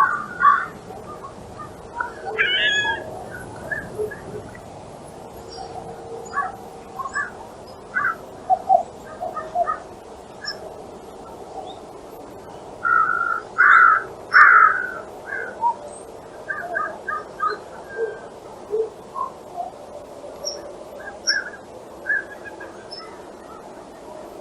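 Wild birds calling over and over, many short calls from a flock, with the loudest run of calls about halfway through.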